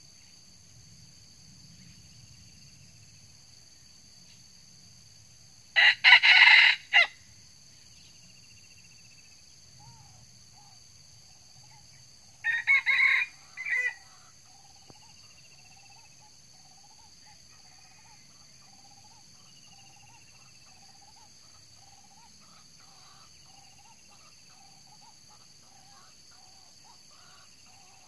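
Red junglefowl rooster crowing twice, about six seconds in and again about thirteen seconds in, the first crow louder.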